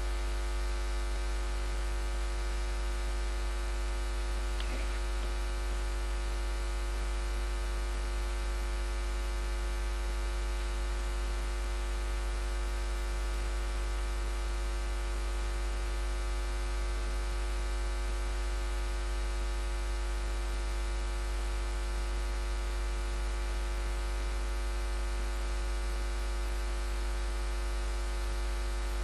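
Steady electrical mains hum with a buzz of many overtones; no distinct bottle, pouring or capping-machine sounds stand out.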